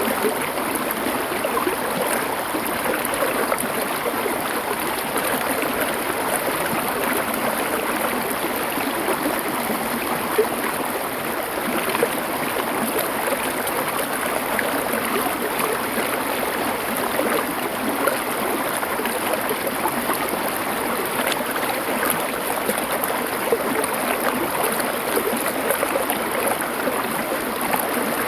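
River water flowing over stones, a steady rushing and gurgling.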